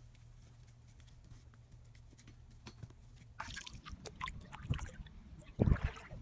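Water splashing and dripping as a cat's paws wade through shallow water, starting about three seconds in after a quiet stretch of faint ticks. A couple of heavy low thumps come near the end.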